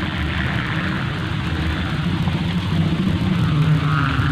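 Steady low drone of a sowangan kite hummer, a ribbon strung on a bow that vibrates in the wind, growing a little louder near the end.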